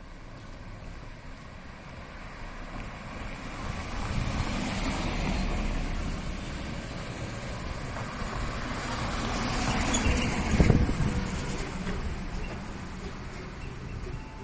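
A vehicle passes close by: a rumble that builds over a few seconds, stays loud, peaks with a sharp thump about ten seconds in, and then fades.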